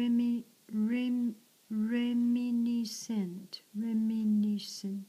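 A woman's voice singing slowly in long held notes, each at one steady pitch, with a short falling glide about three seconds in.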